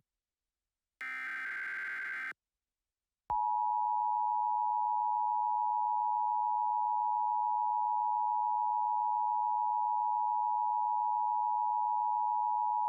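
Emergency Alert System SAME header data burst, a raspy buzz lasting just over a second, then, about three seconds in, the EAS attention signal: a steady two-tone alarm held unchanged for about ten seconds.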